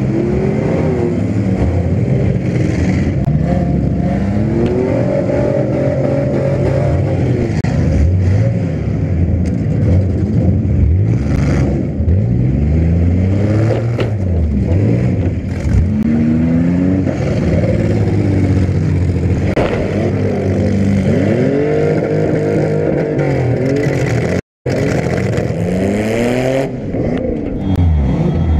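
Demolition derby car engines revving hard, their pitch rising and falling again and again, with sharp crashes of car-to-car hits now and then. The sound cuts out for an instant near the end.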